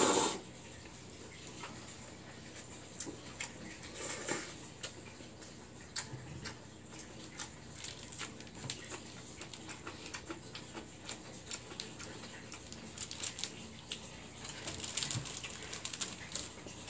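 A person eating noodles: a slurp at the very start and another noisy slurp or breath about four seconds in, then chewing with many small clicks and taps that come thickest near the end.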